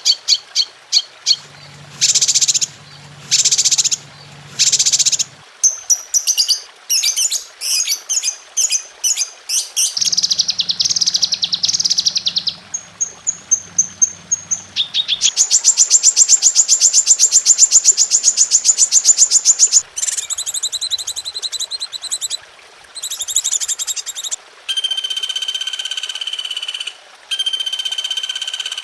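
Recorded songbird calls spliced one after another, each kind lasting a few seconds before an abrupt change: fast chirp series, three long high notes, a rapid buzzy trill, then steady repeated whistled notes near the end.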